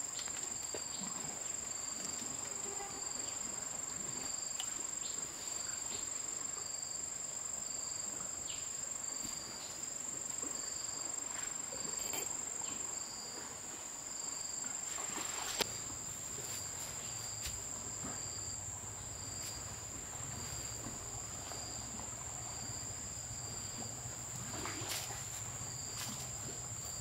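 Insects calling: one high, unbroken trill, with a second insect chirping about once a second at a slightly lower pitch. Scattered sharp clicks and knocks sound over them, and a low hum comes in about halfway.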